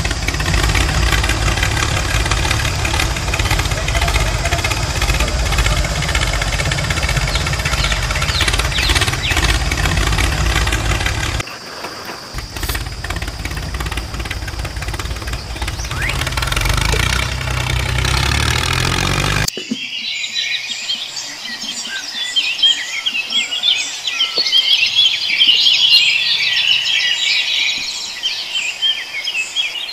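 Tractor engine running steadily, its sound changing about a third of the way in. It cuts off suddenly after about twenty seconds, leaving birds chirping.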